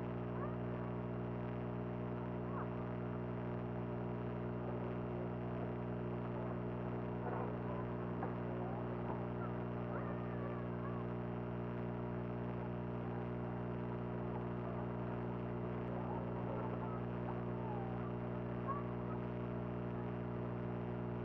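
Steady low hum made of several constant tones, with faint short chirps and squeaks over it.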